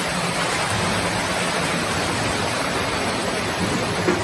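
Water gushing from a burst pipe and spraying across a flooded floor: a steady rushing hiss.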